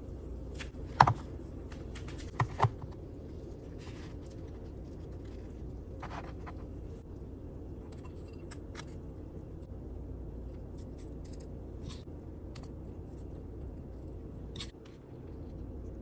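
Kitchen utensil scraping and clinking on cookware while dishing taco filling, with one sharp knock about a second in and two more about two and a half seconds in, then lighter scattered clicks over a steady low hum.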